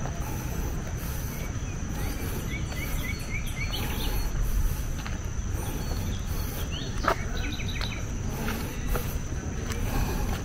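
Tropical forest ambience: a steady high insect drone, with short rising bird chirps about a third of the way in and again near the end, over a low rumble. A single sharp click comes about two-thirds of the way in.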